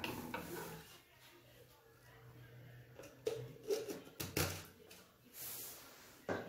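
A few faint knocks and clicks from things being handled, over quiet room tone.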